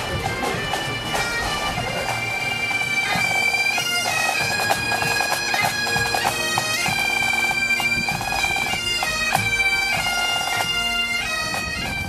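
A pipe band of Great Highland bagpipes playing a tune, its melody moving in held steps over the pipes' steady drones.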